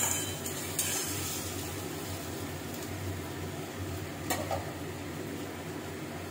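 Sliced onions sizzling steadily as they fry in oil in a kadai over a high gas flame, with a metal spatula clicking against the pan twice near the start and once about four seconds in.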